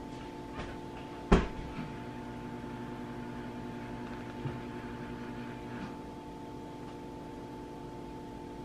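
Steady electrical hum of a household appliance, with a single sharp click a little over a second in; a deeper hum joins from about two to six seconds in.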